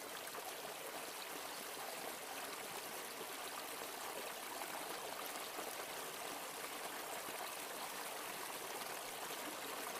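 A stream flowing over rocks, with an even, steady sound of running water.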